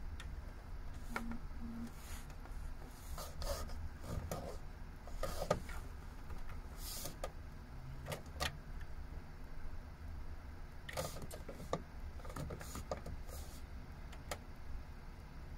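Scattered clicks and taps of a finger pressing the buttons and knob of a MAN truck's dashboard radio unit, with two short low beeps just over a second in, over a steady low hum in the cab.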